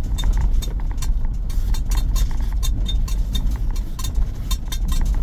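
A vehicle driving over a rough, bumpy dirt track, heard from inside the cab. There is a steady low rumble from the engine and the road, broken by frequent sharp clicks and rattles from the jolting body and loose items.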